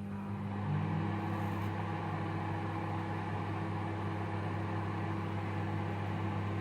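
A household electrical appliance running with a steady, even hum.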